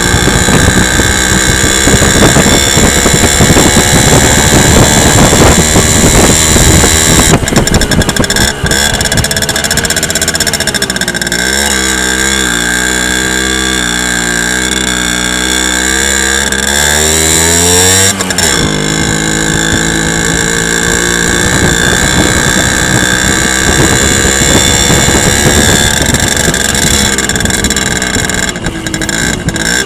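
Simson S50 moped's 50 cc two-stroke single-cylinder engine running on a test ride, freshly repaired with a new carburettor float and new contact breaker points to cure its stalling. The engine note sinks about ten seconds in, stays low for several seconds, then climbs and changes abruptly near 18 s before running on steadily.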